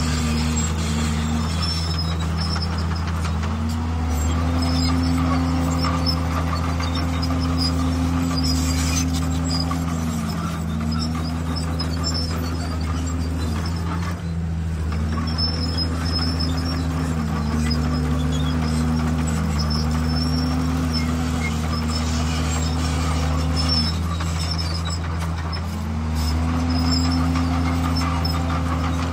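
Bulldozer's diesel engine running hard, its pitch sagging and climbing back every few seconds as the load comes on and off.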